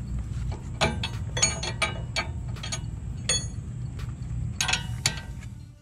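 18 mm wrenches on the top nut of a sway bar end link as it is tightened, with irregular metallic clicks and clinks, some ringing briefly, over a steady low rumble.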